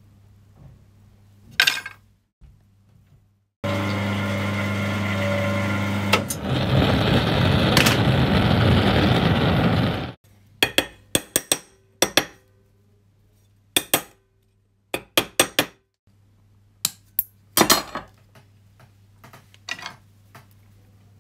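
A steady rushing noise for about six seconds, then a scattered run of short, light metallic clinks and taps from jeweller's hand tools and metal pieces on the bench.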